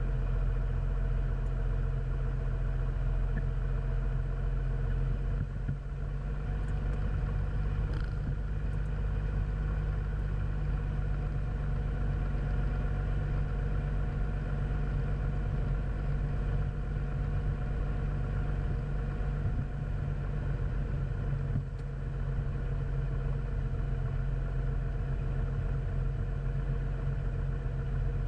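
Cessna 400's turbocharged six-cylinder Continental TSIO-550 engine running steadily at low taxi power after landing, with a deep, even drone.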